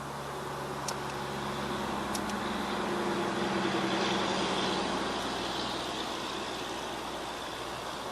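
Faulty camp stove burning with a steady rushing flame noise that swells about halfway through and then eases; two faint clicks near the start.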